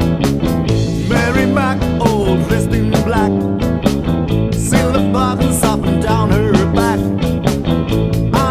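Rock band playing an instrumental passage: bass, drums and electric guitars over a steady beat, with a lead part bending notes.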